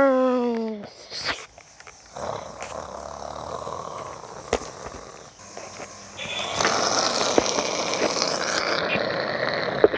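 A child's voice sliding down in pitch, then a long breathy rushing noise, made by mouth as airplane flight noise for a toy plane swooped through the air; the rushing gets louder about six seconds in.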